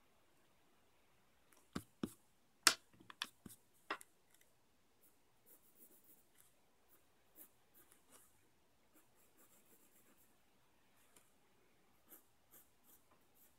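A pencil drawing on paper: faint, short scratching strokes with pauses between them. A few sharp clicks and taps come about two to four seconds in.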